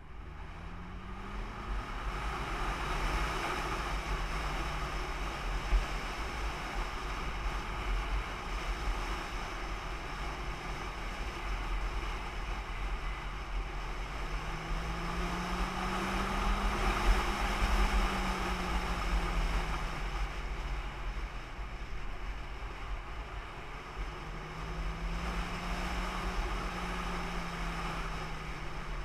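A vehicle's engine running under way, its pitch rising and falling with the throttle about halfway through and again near the end, under a heavy wind rumble on the microphone.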